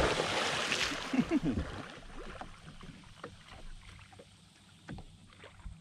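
Splash of a person jumping into calm sea from the side of a jet ski, the spray dying away over the first second or so, then faint water lapping against the hull.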